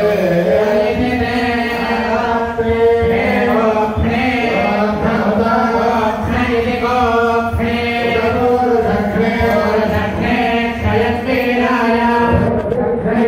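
Hindu temple priests chanting mantras together in a steady, continuous recitation on held, repeated pitches.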